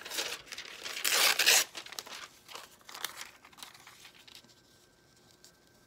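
Glossy magazine paper being crinkled and torn by hand, loudest in one long rip about a second in, then lighter rustling that dies away after about four seconds.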